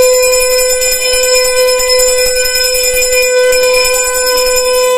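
Conch shell (shankh) blown in one long, loud, steady blast at a single pitch, held unbroken throughout.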